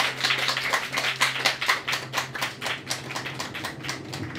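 Small audience applauding, with individual claps audible, dying away near the end.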